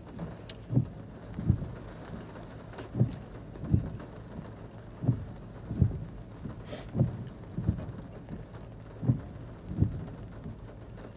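Car windscreen wipers sweeping on a slow setting: soft low thumps in pairs, one pair about every two seconds, with rain on the car. A brief hiss comes about two-thirds of the way through.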